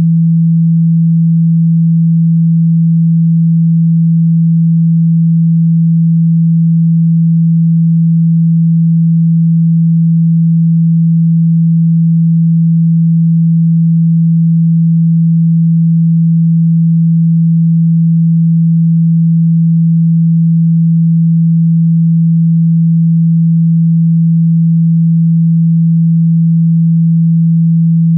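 Loud, steady 165 Hz pure sine-wave test tone: one unchanging low hum. It is played to shake water and dust out of a phone's speaker.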